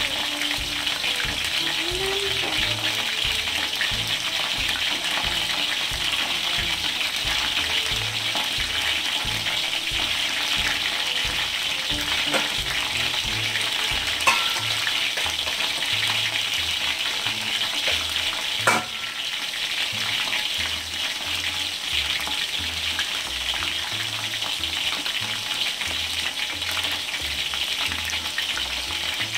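Tapioca-flour-coated chicken pieces deep-frying in oil in a wok, a steady sizzle as fresh raw pieces are dropped into the hot oil. A few sharp clicks sound over it, two louder ones in the middle.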